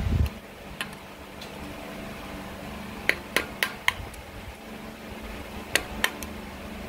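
Steel awl picking and prying at a rusted-through water-jacket plug in a Graham engine block, working it out bit by bit: sharp metal-on-metal clicks, once about a second in, a quick run of four about three seconds in and two or three more near the end.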